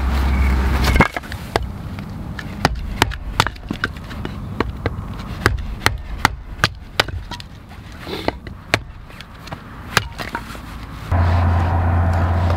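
Firewood being split into kindling with a blade: a run of sharp, irregular knocks and cracks of wood, one or two a second. A steady low hum comes in near the end.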